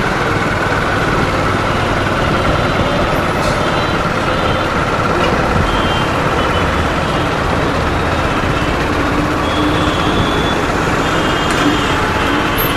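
Steady, loud motor-vehicle road noise: engines running and the rush of traffic, with a few faint short tones in the second half.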